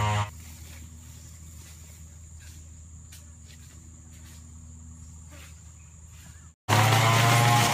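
An insect buzzing steadily at a high pitch in a field, with a few faint ticks. Loud background music cuts back in near the end.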